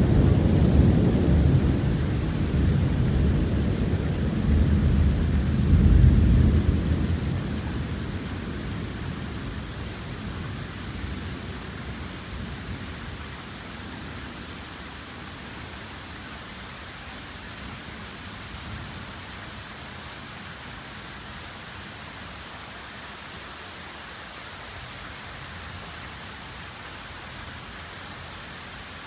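Thunder rumbling loudly through torrential rain, swelling again about six seconds in and then dying away. After that only the steady hiss of the heavy downpour remains.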